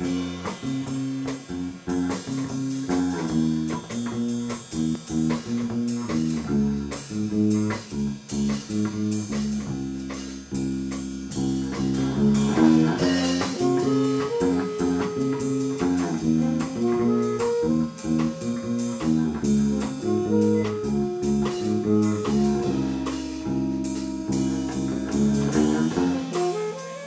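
Background music: a guitar-led blues-jazz instrumental with bass and drums at a steady beat.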